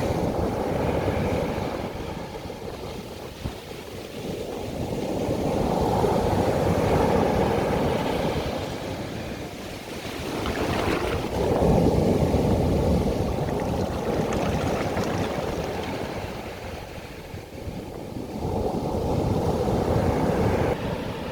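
Ocean surf on a beach: waves breaking and washing in, the noise swelling and fading about every six seconds, with a sharper hissing rush near the middle.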